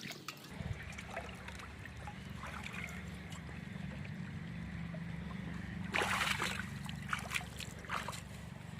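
A steady low hum like a small motor running, with light water sounds over it and a louder splash about six seconds in.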